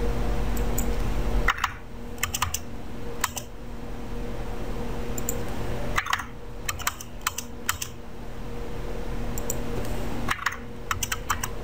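Computer keyboard keys clicking in three short flurries, starting about a second and a half, six and ten seconds in, over a steady hum.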